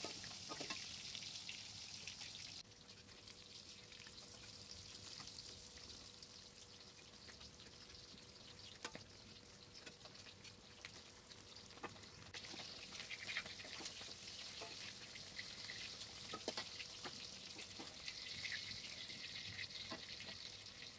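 Tempeh slices frying in hot oil in a wok, a faint steady sizzle, with occasional light clicks of a metal spatula turning them.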